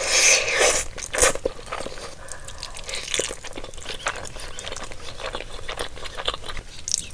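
Close-miked eating of a buldak (spicy fire-noodle) burrito: a loud bite in the first second, then steady chewing with many small clicks and smacks.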